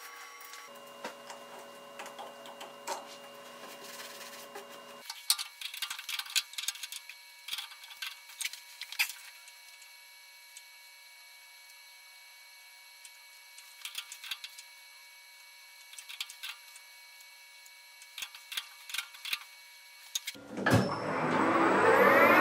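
Light clicks and knocks of metal parts being handled over a faint steady hum, then near the end an electric shop machine motor starts and spins up with a rising whine that levels off.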